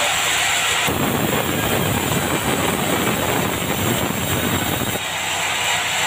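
Band sawmill sawing dried bengkirai (yellow balau) timber: a loud, steady mechanical hiss and whine of the saw. From about a second in to about five seconds in the sound turns lower and rougher.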